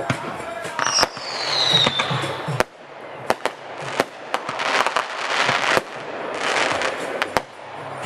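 Fireworks display: a series of sharp bangs from bursting shells, a whistle falling in pitch about a second in, and longer stretches of crackling from the bursts in the second half.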